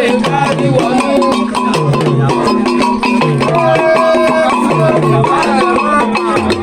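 Music with percussion and a bass line that repeats about every second and a half.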